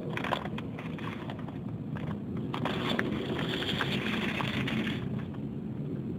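A cloth rag rustling and rubbing as it wipes around the engine underside, with scattered light handling clicks in the first second and a louder stretch of rubbing from about two and a half to five seconds in, over a steady low rumble.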